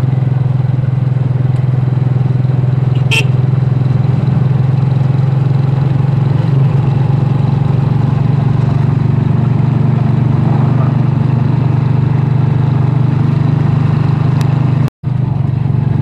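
Motorcycle engine of a tricycle running steadily at cruising speed, heard from inside its sidecar along with road noise. A sharp click about three seconds in, and the sound cuts out for an instant near the end.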